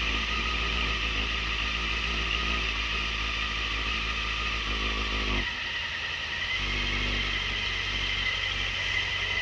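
Motorcycle riding in city traffic: steady engine and road noise with a deep low rumble. The rumble drops away for about a second about five and a half seconds in, then returns.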